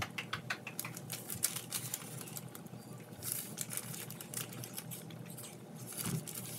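Light, irregular crisp clicking and crinkling of parchment paper as cut pie-crust pieces are peeled off it by hand, over a faint steady hum.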